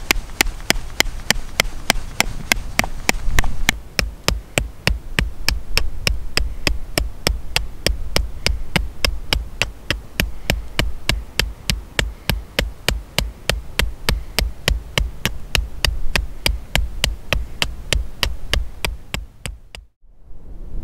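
A steady drum beat, about three even strikes a second, each a low thud with a sharp click on top; it stops abruptly near the end.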